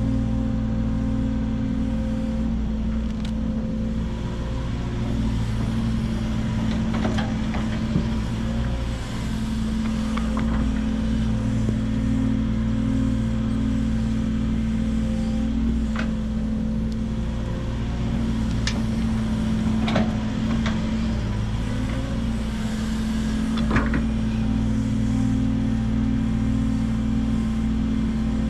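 Hydraulic excavator's diesel engine running steadily under working load, its note swelling and easing as the hydraulics dig and swing. Sharp knocks come now and then from the bucket and linkage working in the dirt.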